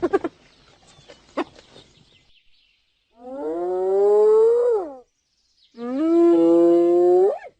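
Two long, drawn-out animal calls, each about two seconds, with the pitch climbing near the end of each, after a few short scattered sounds.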